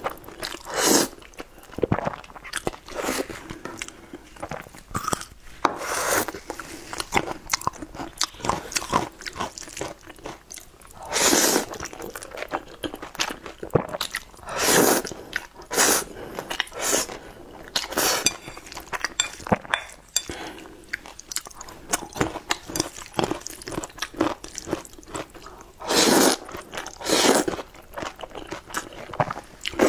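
A person slurping thick sauced noodles off chopsticks, in long slurps a few seconds apart, with chewing and mouth smacks between them, close to the microphone.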